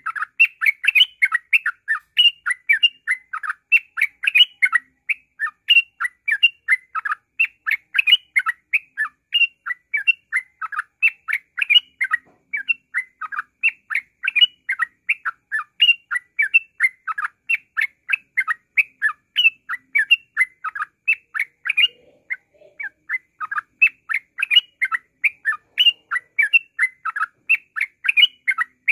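Caged yellow-vented bulbul (trucukan) singing a fast, unbroken run of short chirping notes, several a second. This is the dense 'ngropel' style of song used as a masteran to set other birds singing. There is a brief pause about three-quarters of the way in.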